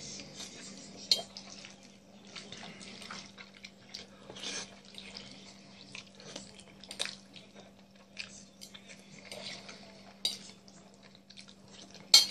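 Close-up eating sounds: a metal fork clinking and scraping on a plate of pasta and fried chicken, with chewing and mouth sounds between. The clinks come at irregular moments, the sharpest about a second in, around seven and ten seconds, and just before the end.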